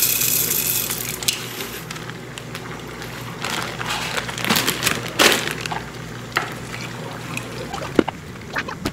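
A steady hiss that fades out in the first second and a half, then a plastic bag of dry pasta crinkling and the pasta being poured into the soup pot, with a few sharp clicks near the end.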